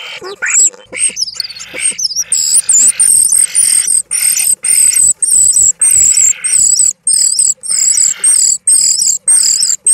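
Male common starling singing: a few varied gliding whistles, then a rapid even series of high squeaky notes with a harsh buzz beneath, a little over two a second.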